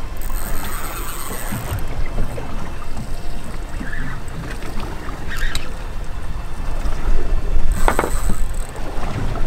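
Choppy water slapping against a small boat's hull, with wind rumbling on the microphone. Two brief high-pitched sounds stand out, near the start and about eight seconds in, the second with a few sharp knocks.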